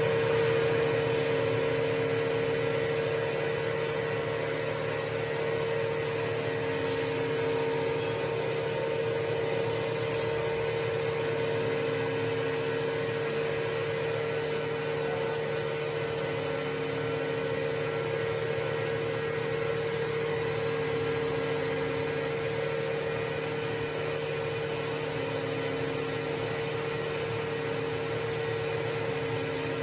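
Stainless-steel dry rice grinder (pulverizer) running steadily while grinding raw rice into superfine flour. It makes one steady high whine over a motor hum.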